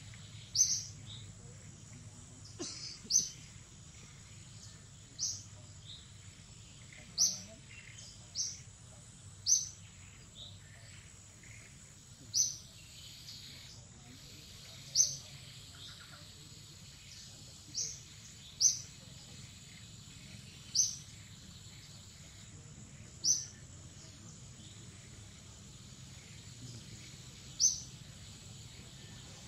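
A bird chirping over and over: short, high chirps at irregular gaps of one to a few seconds, over steady low background noise.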